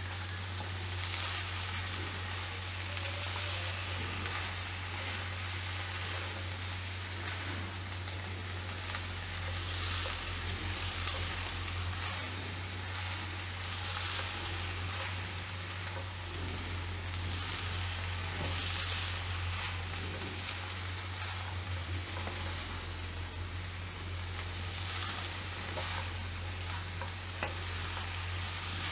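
Shredded cabbage and potato sizzling in oil in a wok while being stirred and tossed with a silicone spatula, the hiss swelling and easing with the strokes. A steady low hum runs underneath.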